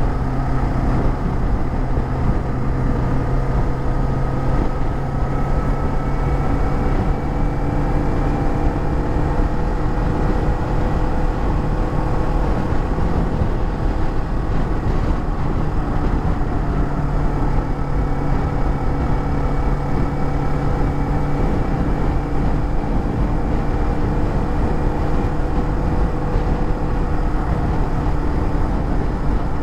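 Kawasaki Z400's parallel-twin engine running at a steady cruise under a constant rush of wind. Its pitch drifts slowly up and settles a couple of times.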